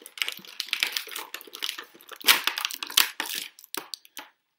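Stiff plastic packaging crackling and crinkling in irregular bursts as an action figure is pried out of its tray, with the sharpest cracks a little past halfway.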